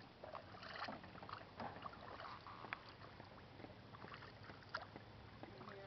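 Canoe paddles dipping and pulling through calm water, with faint, irregular splashes and drips.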